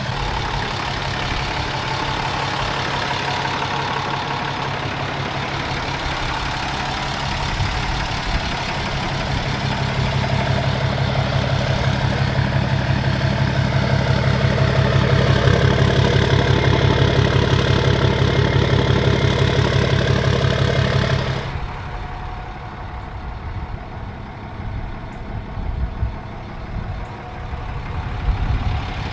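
A 2017 Ram 2500's 6.7 L Cummins inline-six turbo-diesel idling steadily through a 5-inch exhaust with a Karnage performance diesel muffler: an even, low, pulsing rumble. About twenty seconds in, it drops suddenly to a quieter, duller idle.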